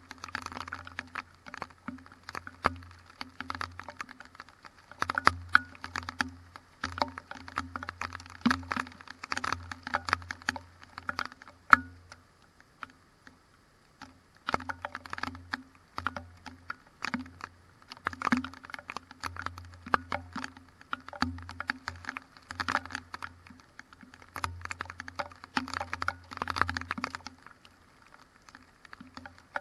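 Raindrops striking the camera housing in irregular, fast taps, with a low hum underneath. The tapping and hum stop for a moment about twelve seconds in and again near the end.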